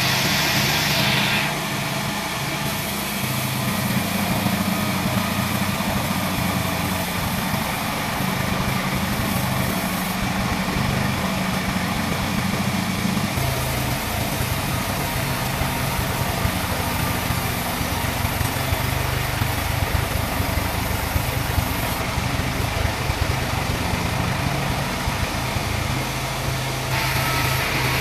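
Large bandsaw mill, powered by a lorry engine, running as a teak log is fed through the blade: a continuous engine drone under the saw's noise. The low drone grows heavier about halfway through.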